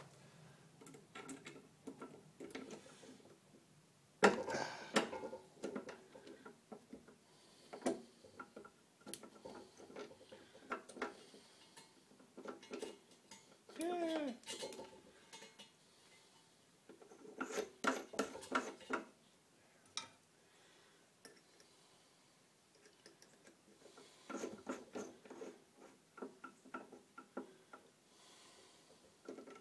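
Metal clinks, taps and knocks from hands working at a drill press's chuck and bit over the steel stand, with a sharp knock about four seconds in; the drill press motor is not running.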